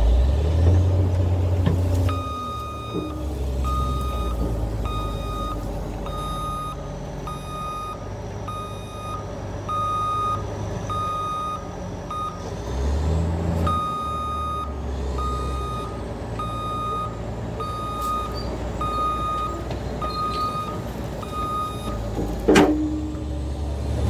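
CAT D8 bulldozer's diesel engine running while its reverse alarm beeps about once a second, pausing briefly about halfway as the engine swells. A single sharp clank near the end.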